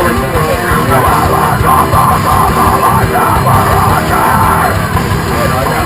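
Loud heavy rock music with shouted vocals, starting abruptly just before this point and continuing throughout.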